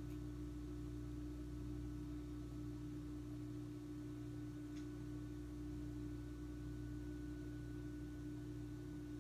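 A steady low hum with one clear tone, and a single faint click about five seconds in.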